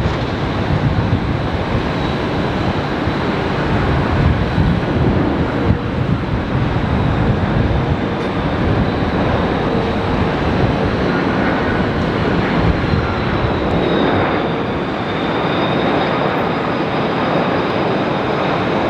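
Jet engines of an Airbus A330 airliner on final approach to land: a steady rush of engine noise with a thin high whine, which splits into two tones and shifts in pitch about two-thirds of the way through.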